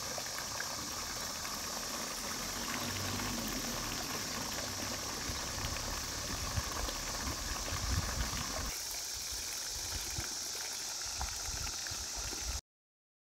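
A steady hissing noise with no clear pitch, which loses its low rumble about nine seconds in and cuts off abruptly to silence near the end.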